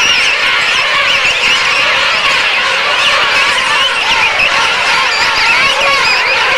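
A king penguin colony calling, crowded with downy chicks: a dense, continuous chorus of many overlapping wavering, whistling calls.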